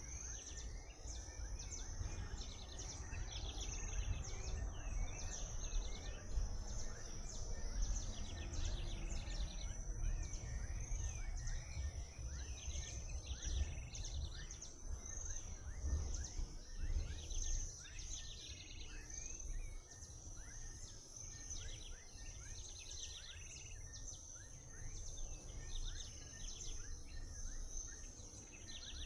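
Birds chirping and singing, with many short calls repeating throughout, over a steady high-pitched whine and a low rumble.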